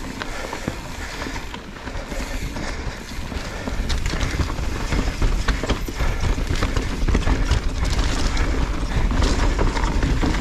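Mountain bike riding fast down a loose dirt trail: tyres crunching and the bike rattling with dense knocks and clatters over a deep rumble, getting louder about four seconds in.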